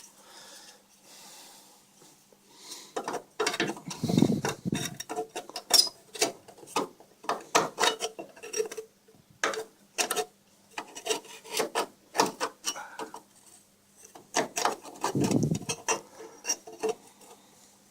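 Sheet-metal repair patch being handled and bent by hand: irregular scraping and rubbing of metal with light clinks. A dull thump comes about four seconds in and another about fifteen seconds in.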